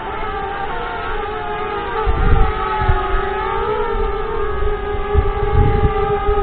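DJI Spark quadcopter's propellers whining steadily, the pitch wavering slightly as the drone manoeuvres close by. Low gusty rumbles hit the microphone twice, about two and five seconds in.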